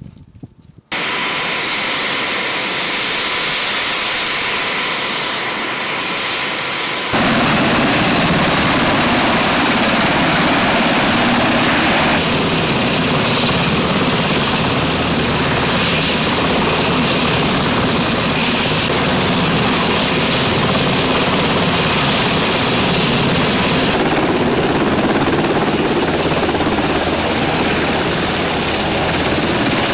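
UH-60 Black Hawk helicopters running, their turbine engines and main rotors making a loud, steady noise that starts about a second in. The noise shifts abruptly in tone and level several times.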